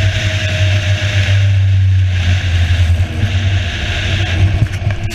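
Open-cockpit sports car's engine running steadily off throttle at about 3,100 rpm while the car coasts at speed, with road and wind noise heard from an onboard microphone. A few sharp knocks come near the end.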